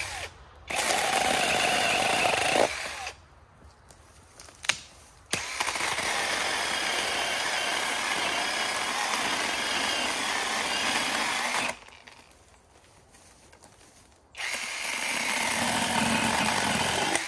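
SeeSii 12-inch 21 V cordless battery chainsaw cutting a dead, dry spruce log, run in three separate cuts: a short one near the start, a longer one of about six seconds in the middle, and another of about three seconds near the end, with pauses between.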